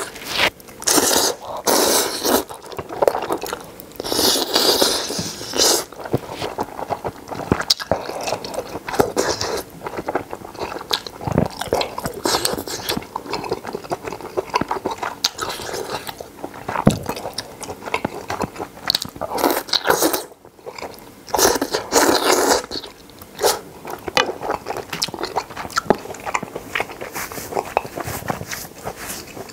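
A person slurping ramen noodles from a spicy broth, close up, in repeated wet bursts lasting about a second each, with wet chewing and smacking between the slurps.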